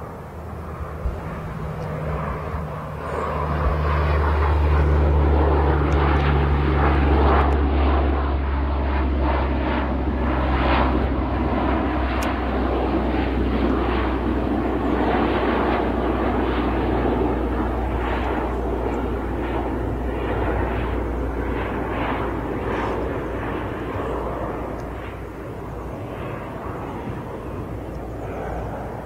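Lockheed C-130 Hercules passing low with its four turboprop engines running: a deep, steady propeller drone with a rough crackling edge. It builds from about three seconds in, is loudest for several seconds, then slowly fades as the aircraft climbs away.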